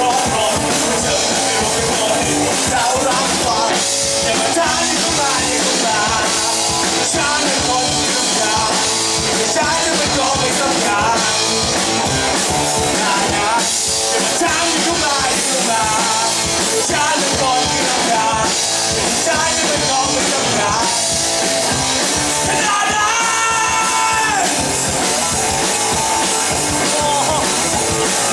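Live rock band playing: drum kit, electric guitar and bass, with a singer's voice over the music.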